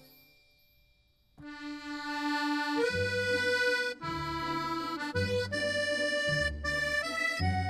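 Background music: one piece fades out into a moment of near silence. About a second and a half in, a new piece starts with long held notes, and a low bass line joins about three seconds in.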